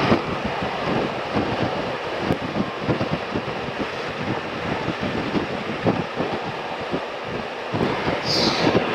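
Wind rushing over the microphone of a motorcycle at highway speed: a steady rush broken by irregular low gusts, with the road and vehicle noise underneath.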